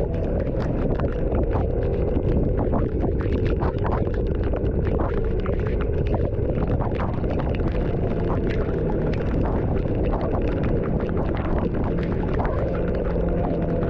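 Vehicle travelling through rain: a steady low rumble of road and wind noise on the microphone, with many scattered ticks of raindrops striking.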